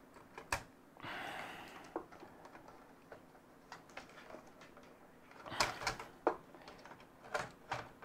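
Clicks, taps and knocks of hands working at a small mini-ITX PC case to pry a part loose, with a brief scraping rustle about a second in and a run of louder clicks past the middle.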